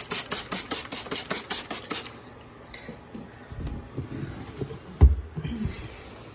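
Hand trigger spray bottle squirted rapidly to mist a ball python's tub, a quick series of hissing sprays at about five a second that stops about two seconds in. Low handling noises follow, then a single loud thump of the plastic tub being moved in its rack about five seconds in.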